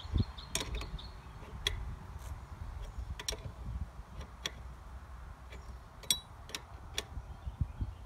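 Wrench and pliers clicking against the metal fitting of a new well pump pressure switch as it is turned tighter onto the pipe riser: scattered sharp, irregular metallic clicks over a low rumble.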